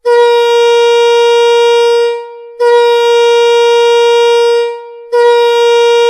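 Arena goal horn sounding three long blasts of about two seconds each, on one steady low pitch, with short breaks between them.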